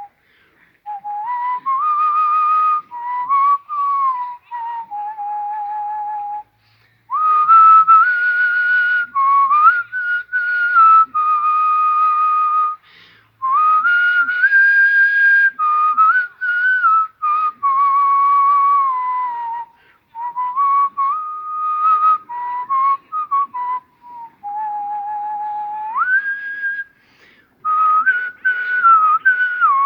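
A young man whistling a melody: clear single notes held with a wavering vibrato, sliding up and down between pitches in phrases separated by short breaths.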